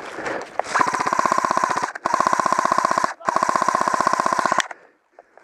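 Airsoft electric rifle firing on full auto: three long bursts of rapid, evenly spaced shots, about a second each with short gaps, over a steady motor whine, then a sudden stop.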